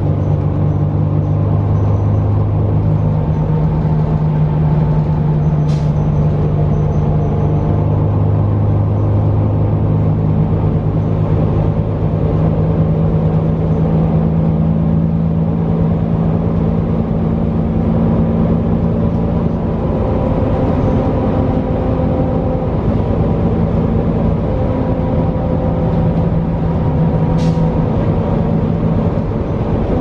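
Cummins L9 diesel engine and Allison B400R six-speed automatic transmission of a New Flyer XD40 transit bus, heard from inside the passenger cabin while the bus drives: a steady low drone whose pitch steps up and down a few times as the bus changes speed. Two brief high ticks sound, about six seconds in and near the end.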